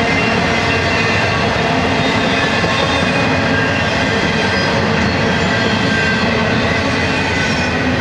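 Empty double-stack intermodal well cars of a freight train rolling past: a loud, steady rumble and rattle of steel wheels on rail, with thin steady ringing tones from the wheels running through it.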